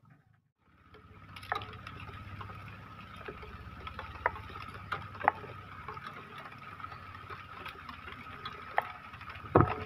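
Rain falling on a river, a steady hiss with scattered sharp drop taps and a faint steady thin tone behind it. Two heavy knocks come near the end.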